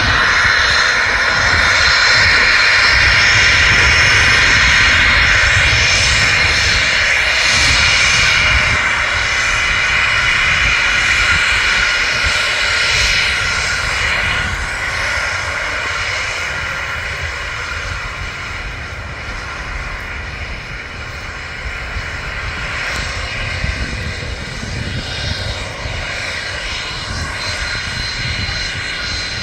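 Embraer Phenom 300E light jet's twin turbofan engines roaring at takeoff power. The roar is loudest in the first several seconds, then slowly fades as the jet moves away.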